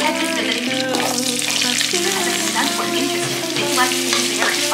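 Sliced onions and green peppers sizzling in hot oil in a nonstick pot while a spatula stirs them, over background music.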